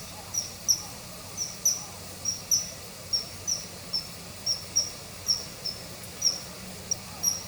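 Common kingfisher calling: a steady series of short, high, thin whistled notes, about three a second, some coming in quick pairs.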